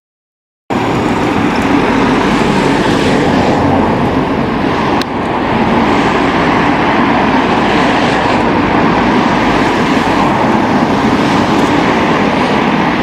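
A loud, steady rushing rumble with no clear pitch that cuts in abruptly about a second in.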